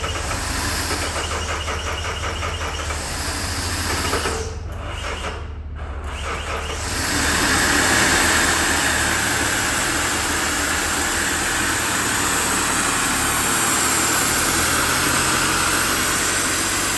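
Mazda 6 2.2 Skyactiv diesel being started with its DPF blocked, exhaust let out through the open temperature-sensor port: a low engine rumble, briefly dropping off about five seconds in, then a louder steady hiss of exhaust gas over the running engine from about seven seconds on.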